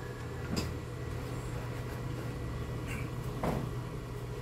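A few light knocks and clatters as things are handled on a workbench: one about half a second in and two close together near three seconds. A steady low hum runs underneath.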